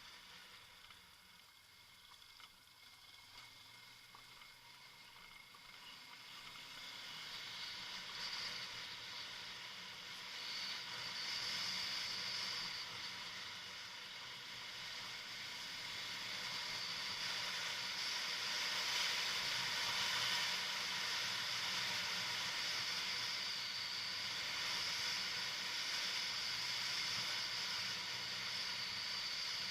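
Kawasaki Versys motorcycle being ridden off-road, heard as a steady rushing hiss over a faint low engine hum, growing louder over the first twenty seconds and then holding.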